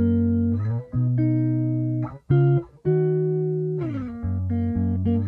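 Music: a guitar playing slow held chords, a new chord about every second, with the notes gliding in pitch from one chord to the next.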